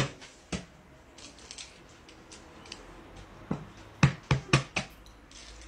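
Egg shells clicking and tapping as whole eggs are handled: scattered light clicks, then a quick run of four or five louder sharp clicks about three and a half to five seconds in.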